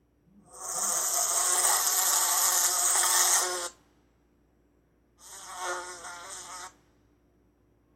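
Insect buzzing in two bursts: a long one of about three seconds, then after a pause a shorter one of about a second and a half.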